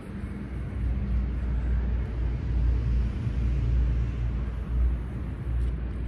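A low rumble that swells about a second in and holds with small dips.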